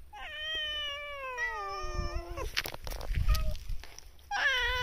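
A cat meowing: one long, drawn-out meow that falls in pitch over about two seconds, a short chirp-like call about three seconds in, then another meow starting near the end.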